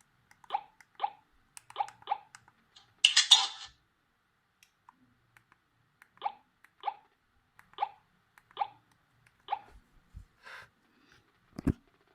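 Ringtone from a Wiko Riff 3 Plus phone's small speaker: sparse short, sharp notes, mostly in pairs, broken about three seconds in by a brief hissing burst. A thump near the end.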